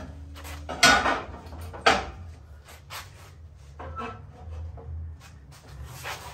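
Sheet-steel step notch cap knocking and scraping against the steel notch sides as it is fitted by hand: a handful of sharp metal knocks, the loudest about a second in, with rubbing in between.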